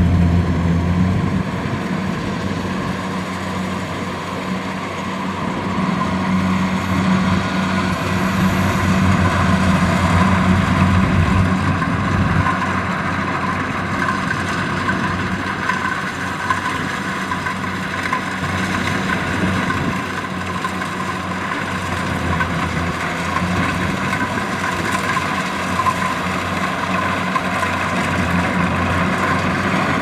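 Kubota DC70 rice combine harvester's diesel engine running steadily under load, with the continuous whirr of its cutting and threshing gear, as it harvests standing rice. The deep engine drone is strongest in the first ten seconds or so, then eases back a little.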